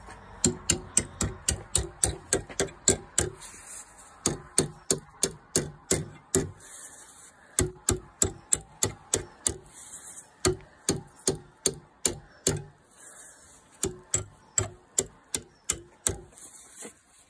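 Small hammer striking a rusty pair of pliers held in a steel bench vise: sharp, light taps about three to four a second, in several runs with short pauses. The taps are working the seized pivot joint loose.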